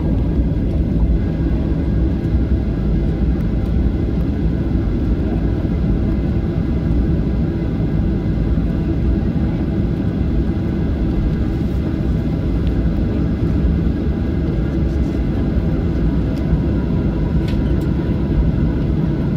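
Steady cabin noise of a Ryanair Boeing 737 taxiing after landing: a low engine rumble with faint whining tones over it, heard from inside the cabin.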